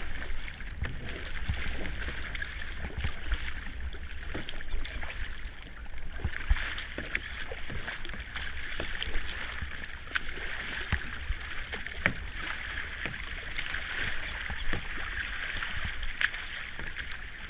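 Kayak being paddled on a river: a steady wash of water splashing against the paddle and hull, with scattered sharp knocks and a constant low rumble.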